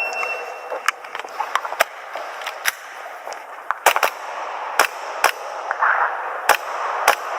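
Electronic shot-timer start beep, one steady high tone lasting under a second. It is followed by a string of about a dozen sharp airsoft pistol shots at irregular intervals, some fired in quick pairs.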